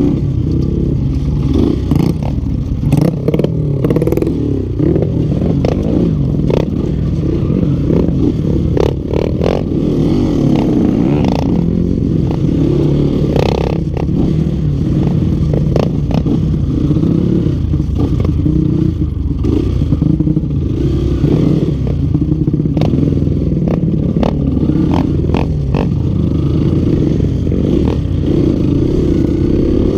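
Yamaha Vixion trail motorcycle's single-cylinder four-stroke engine running under throttle while ridden over rough ground, with scattered clattering knocks from the bike. The rider blames its weak pull on leaking compression.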